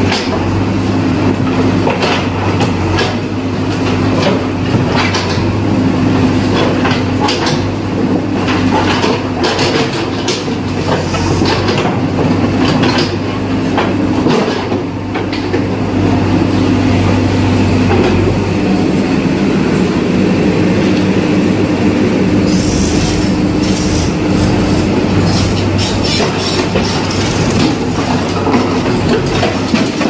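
JCB backhoe loader's diesel engine running steadily under load while its steel bucket scrapes, knocks and clanks against broken concrete slabs and rubble. The engine note shifts a little past halfway, and the clatter of rubble is thickest near the end.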